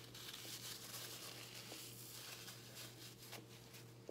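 Faint, close-miked eating noises from a bagel sandwich: a soft rustling haze with small crackles and clicks, which eases off near the end.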